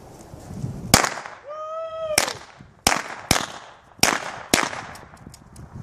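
Six sharp gunshots fired at irregular intervals, about half a second to a second and a quarter apart. A short, high pitched shouted call comes between the first and second shot.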